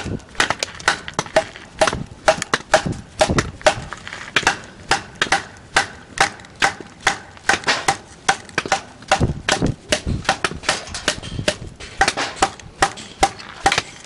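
Axe chopping firewood with quick, light strokes, about three sharp knocks a second, each with a short ring.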